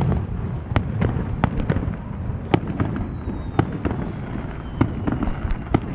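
Aerial fireworks shells bursting in a display: an irregular run of sharp cracks and bangs, several a second, over a continuous low rumble.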